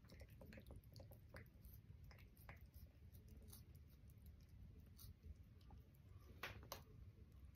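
Tabby cat licking a paste treat from a squeeze tube held to its mouth: faint, irregular wet tongue clicks, with one sharper click a little after six seconds in.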